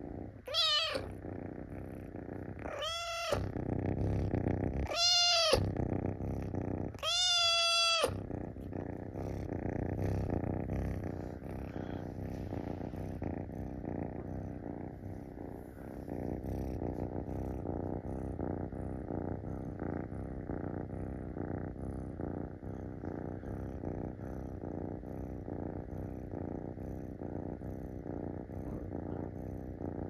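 Munchkin kitten meowing four times in the first eight seconds, the last meow the longest, while purring steadily throughout. The meows are its begging to be stroked.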